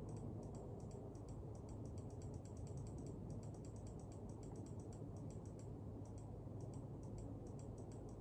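Light, irregular clicking of computer controls, several clicks a second, as the gait-analysis footage is stepped through. A low, steady hum runs underneath.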